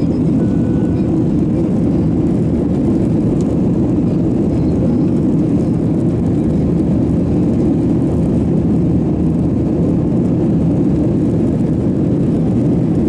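Airbus A320-214's CFM56-5B turbofan engines at takeoff thrust, heard from inside the cabin as a loud, steady, deep noise as the airliner lifts off and climbs.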